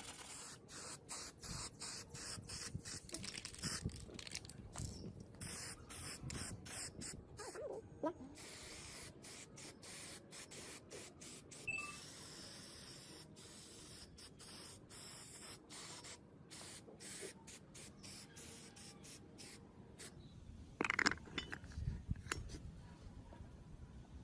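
Spraying hiss in many short bursts, starting and stopping roughly two or three times a second, as from a spray gun or air nozzle worked on the gearbox parts. Near the end come a few louder clunks of metal being handled.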